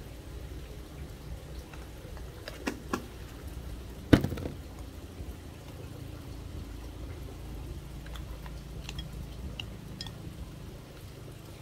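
Light clicks and taps from things being handled, with one sharp knock a little after four seconds in, over a low steady hum.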